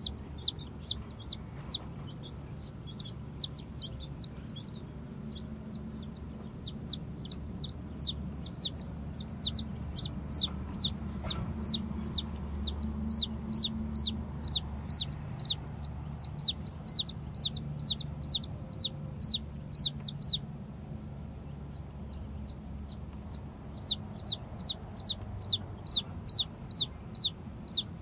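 Newborn chicks peeping: rapid, high, downward-sliding peeps, several a second, coming in bouts. They stop for a few seconds about three-quarters of the way through, then start again.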